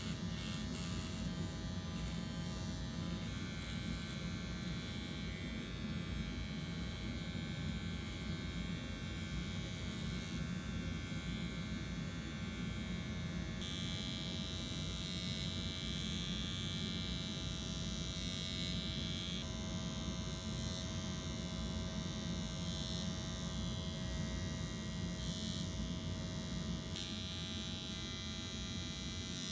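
Dr. Pen motorized microneedling pen buzzing steadily as its needle cartridge is moved over the skin of the face, with a higher whine joining about halfway through.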